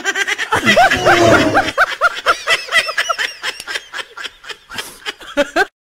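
High-pitched snickering laughter: a rapid string of short 'hee-hee' bursts, about four a second, breaking off abruptly near the end.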